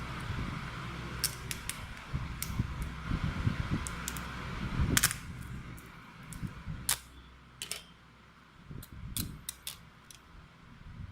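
Small sharp clicks and taps from handling the layers and parts of a mobile phone LCD on a workbench, about a dozen scattered through, the loudest about five seconds in, over a low hum that fades out about halfway.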